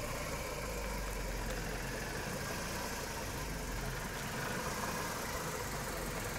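Ford Focus Mk1 estate's 1.6-litre four-cylinder petrol engine idling steadily, heard from outside the car.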